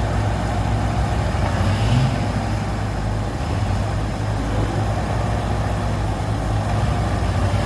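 Heavy vehicle's diesel engine running steadily with a low, even drone.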